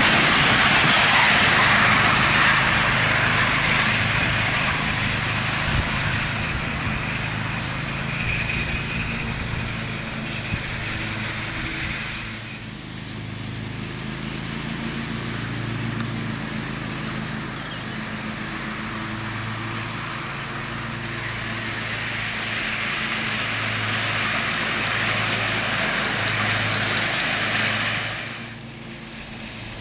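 A 5-inch gauge live-steam model Duchess class locomotive with two cylinders running along a riding track: a steam hiss and exhaust mixed with wheel and rail noise, under a low pulsing. It is loudest at first and fades as the engine pulls away, and the sound drops abruptly twice.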